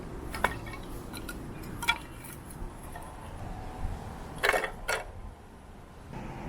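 Tableware clinking: a handful of sharp taps of dishes and cutlery with brief ringing, two of them close together near the middle, over a low steady background.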